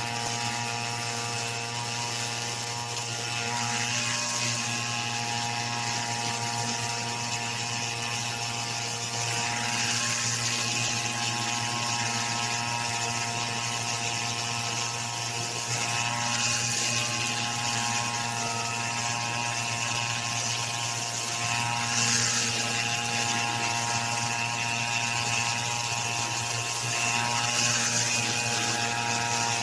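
A small engine running steadily at an even speed, with a constant hum and a hiss above it.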